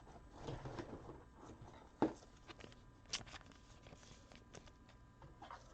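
Faint handling of trading cards: a soft rustle, then light clicks or taps about two and three seconds in.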